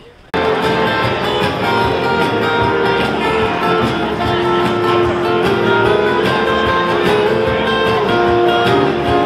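Guitar music, with held plucked notes, starting abruptly about half a second in and playing steadily.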